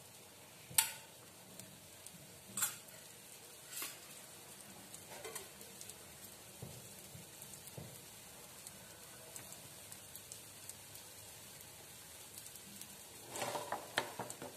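Gram-flour tomato omelette batter frying in oil on a flat griddle (tawa), sizzling steadily with occasional sharp pops, several close together near the end, as oil poured around its edges heats.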